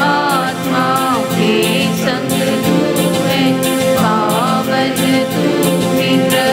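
A hymn sung with instrumental accompaniment and a steady beat.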